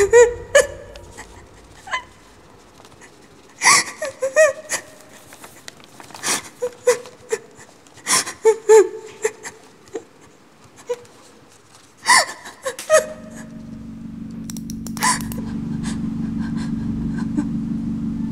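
A young woman sobbing, with gasping breaths and short broken whimpers at irregular intervals. A low steady hum comes in about two-thirds of the way through.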